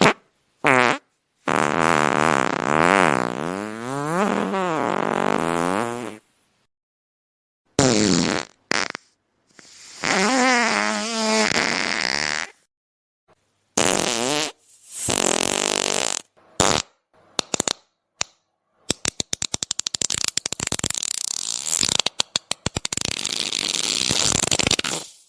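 A series of fart sound effects with silent gaps between them: two long, drawn-out ones with wavering pitch, several short blasts, and in the last six seconds a rapid run of sputters that runs into continuous noisy sputtering.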